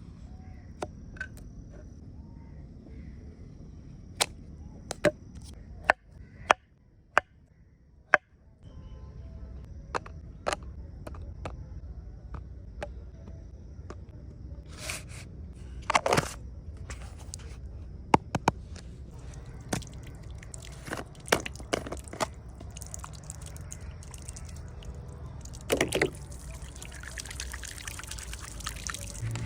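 Scattered sharp clicks and knocks, some in quick clusters, over a steady low rumble, with a hiss building near the end.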